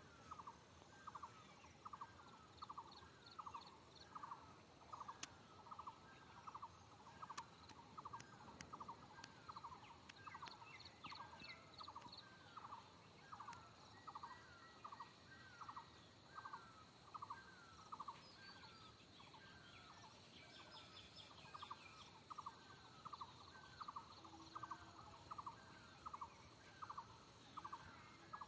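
Faint, rhythmic animal calls: short calls repeated steadily in pairs, about one pair a second, with fainter, higher chirps in places.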